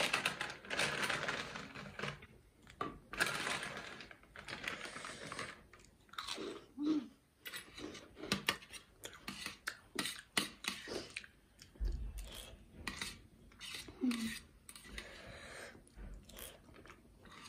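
A plastic snack packet crinkling as crunchy corn puffs are tipped out of it, then close-up crunching and chewing, a quick run of sharp crackles through the second half.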